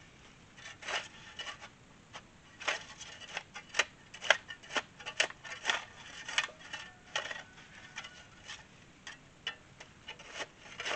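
Steel shovel blade scraping and chopping into wet red clay soil: an irregular run of short, sharp scrapes, a few each second.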